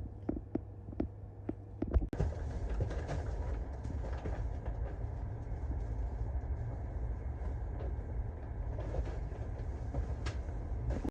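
Train running on the rails: a steady rumble with scattered knocks and rattles. In the first two seconds it is quieter, with a run of regular clicks about twice a second.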